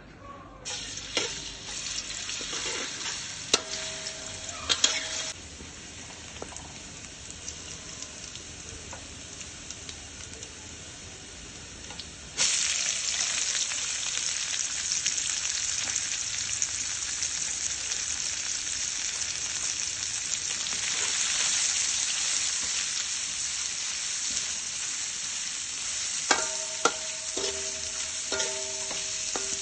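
Cooking oil sizzling in a metal wok, a thin hiss with scattered pops; about twelve seconds in, julienned ginger goes into the hot oil and the sizzling suddenly becomes loud and dense. Near the end a metal spatula stir-fries the ginger, clanking against the wok, which rings briefly with each hit.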